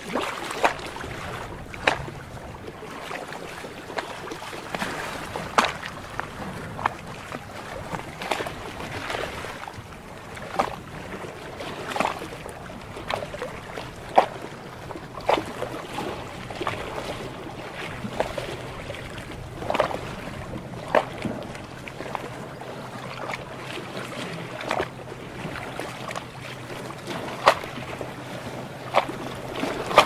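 Water lapping and splashing: a steady watery hiss broken by irregular sharp slaps, about one or two a second. A faint low hum joins about halfway through.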